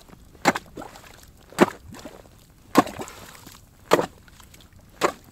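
Ice being chopped by hand to dig a fishing hole: five hard, evenly spaced strikes about a second apart.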